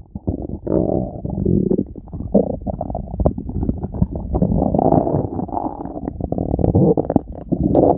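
A stomach growling: a continuous low gurgling rumble broken by many short pops and squelches, swelling a little in the second half.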